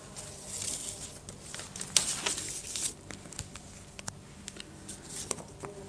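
Soft rustling in several short bursts and scattered sharp clicks, the sound of things being handled close to the microphone, over a faint steady low hum.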